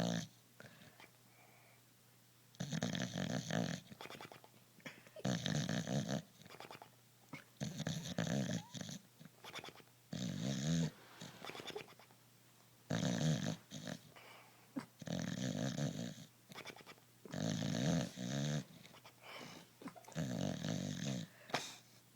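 Bulldog snoring in a steady rhythm: about eight loud snores, one every two to three seconds, with quieter breaths between them.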